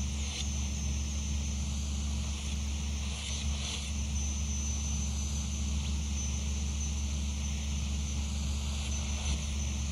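Experimental noise-music drone from a cassette: a steady low hum with a constant high, thin tone and hiss over it, barely changing.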